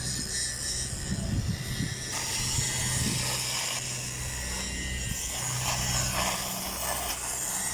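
Steady low machine hum on a pipeline welding site, joined about two seconds in by a hissing crackle higher up.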